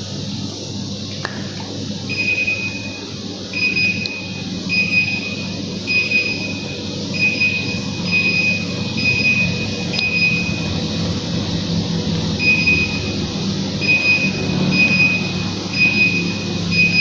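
A high electronic beep repeating about once a second, starting about two seconds in with a short break midway, over a steady low machine hum.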